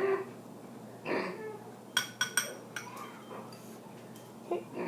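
A spoon clinking against a bowl: about four light, ringing clinks in quick succession about two seconds in, as a spoonful of detergent goes into the glue.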